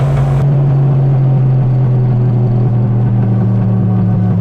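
Turbocharged 363 cubic-inch stroker small-block Ford V8 of a Fox-body Mustang running at a steady, moderate speed, heard from inside the car's cabin just after a quarter-mile drag pass.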